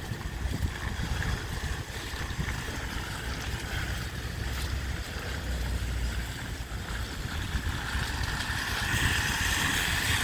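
Wind buffeting the microphone, an uneven low rumble, over a steady outdoor hiss.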